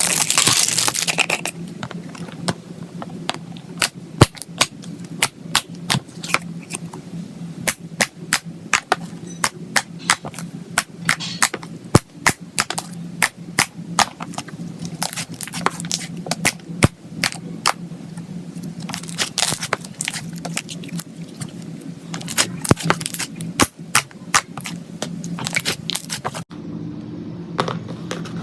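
Slime being pressed and stretched by hand, giving off a dense, irregular run of sharp pops and crackles.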